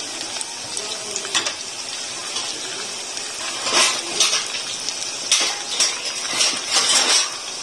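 Boondi (gram-flour batter drops) frying in hot ghee in a metal pan: a steady sizzle, with a few short sharp clicks in the second half.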